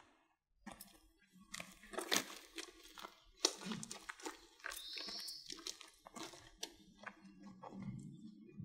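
Irregular crunching and rustling: footsteps on gritty ground and the handling of a leafy sakaki branch. There is a short high chirp about five seconds in.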